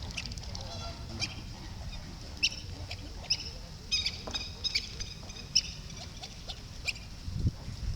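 Small birds giving short, high chirps, a dozen or so scattered irregularly, over a steady low rumble.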